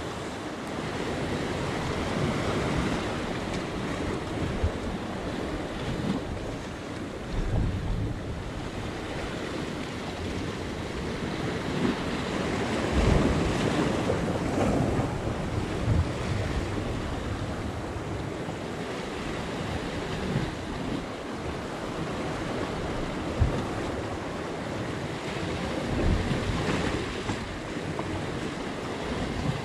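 Sea surf washing and breaking over coastal rocks, with wind buffeting the microphone in uneven low gusts.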